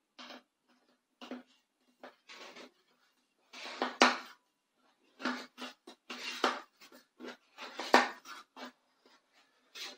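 A thin tool scraping around the inside wall of a metal tube pan, loosening a baked chiffon cake from the pan: a run of short, uneven scrapes, with sharper clicks about four seconds in and again about eight seconds in.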